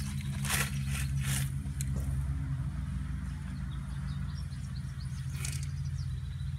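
Pea-sized pebbles crunching and rattling in short bursts as a toddler moves plastic toy trucks through the gravel of a sandbox, over a steady low hum.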